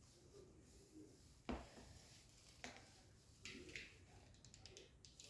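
Quiet handling of small objects on a work table. There is a soft knock about a second and a half in, a click about a second later, then brief rustling and a few faint ticks.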